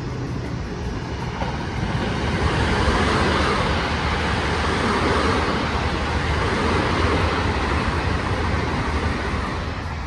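A vehicle passing by: a broad rushing noise that swells over the first couple of seconds, holds, and fades away near the end.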